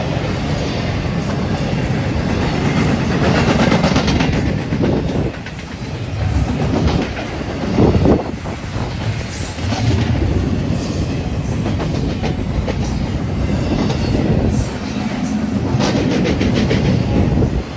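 A freight train's cars rolling past at close range, a steady rumble with wheels clacking over rail joints in repeated clicks.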